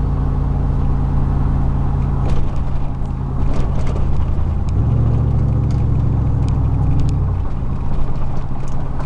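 Chevrolet Silverado 4.8-litre V8 running a partly finished 3-inch exhaust, droning steadily in the cab while cruising. The drone grows stronger for about three seconds in the middle.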